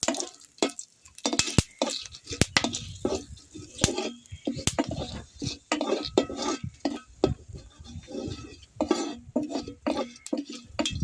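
Spatula stirring and scraping whole spices frying in ghee in a kadai, with irregular clinks and scrapes against the pan.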